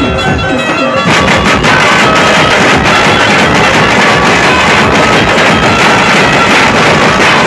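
Dhumal band music played loud through a speaker rig: a held melody line, then about a second in the drums come crashing in with dense, heavy beats that carry on steadily.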